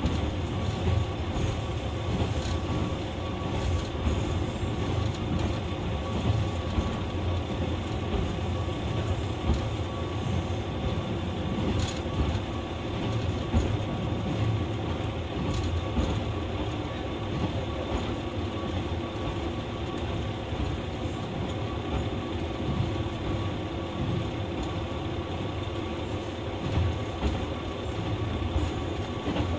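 Running sound of a JR West KiHa 120 series diesel railcar: its diesel engine and wheels on the rails make a steady rumbling noise with no sharp events.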